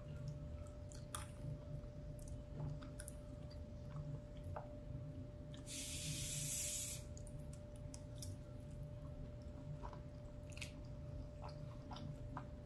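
Close-up chewing and mouth sounds of someone eating rice and beans, with small clicks of a plastic fork scooping from the plate. A hiss lasting about a second comes near the middle, over a faint steady hum.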